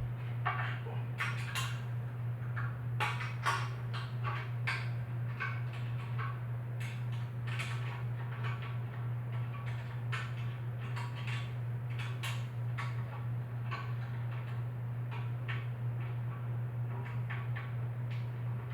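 Irregular metallic clicks and clinks of hand tools working the nuts and bolts that hold a motorized bicycle's gas tank, over a steady low hum.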